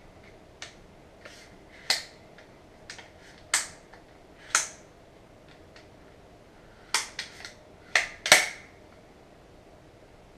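Adjustable rifle stock clicking as it is slid along the buffer tube and latched into position: a series of sharp clicks at irregular intervals, with a quick cluster of them near the end.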